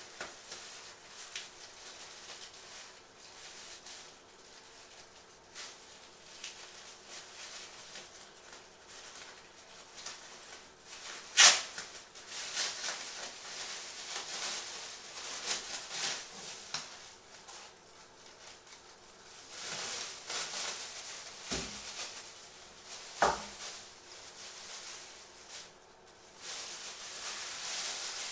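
Thin plastic bags rustling and crinkling as they are handled and unwrapped by hand in a small room, with a sharp snap about eleven seconds in and two dull knocks about ten seconds later.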